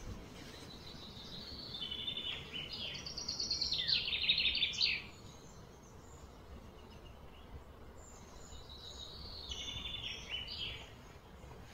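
A bird singing two bouts of rapid trilled phrases that step between pitches, the first a few seconds long and louder, the second shorter, over faint low background noise.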